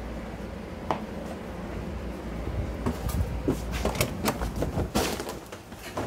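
Handling noise from a phone being moved about: a single click about a second in, then a quick string of clicks and knocks through the middle, over a low steady hum.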